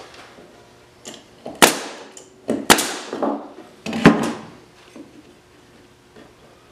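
A nail gun shooting nails into the pine pieces of a birdhouse frame: four sharp knocks, starting about a second and a half in and over within about two and a half seconds.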